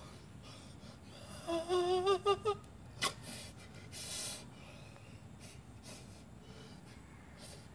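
A person's wavering, strained vocal sound lasting about a second, followed by a sharp click and a brief breathy hiss.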